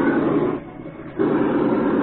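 Simulated engine sound from the onboard ESS sound box of a Traxxas Summit RC monster truck, a steady engine-like rumble of fast pulses that cuts out about half a second in and comes back about a second in.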